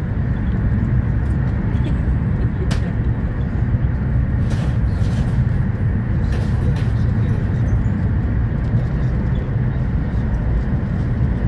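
Steady running rumble of a Renfe Alvia train at speed, heard inside the passenger car, with a few light clicks about the middle.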